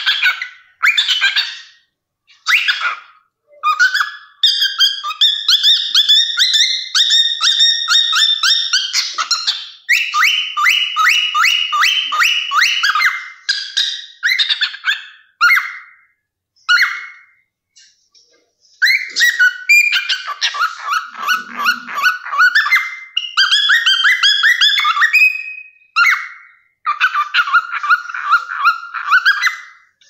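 Cockatiel singing in chattering phrases of rapid repeated notes and short whistles, with brief pauses between phrases.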